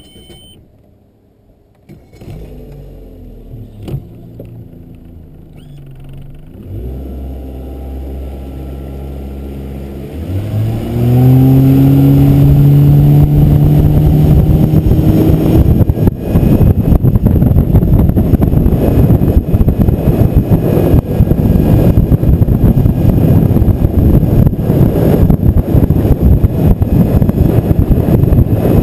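Boat's outboard motor idling low, then the throttle opens about ten seconds in and its pitch climbs as the boat gets up to speed. It then runs loud and steady at speed with a rough rushing noise of wind and water over it.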